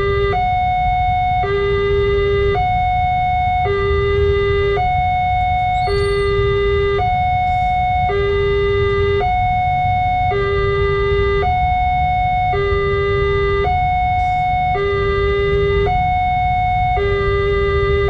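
Railway level-crossing warning siren sounding a two-tone alarm, switching evenly between a low and a high tone about once a second, over a steady low rumble.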